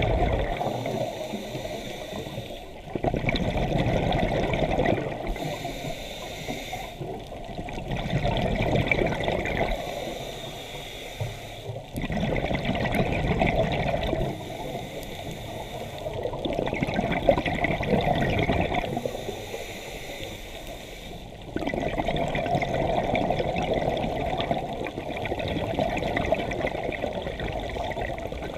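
Scuba regulator breathing underwater. Loud bubbling surges of exhaled air alternate with quieter, hissing stretches, in a cycle that repeats every few seconds.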